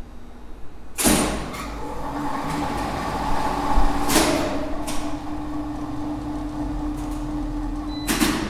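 Two-speed elevator hoist machine with a cage induction motor: a sharp clack about a second in as it starts, then a steady running hum. Another clack about four seconds in, after which the running note changes, and a further clack near the end.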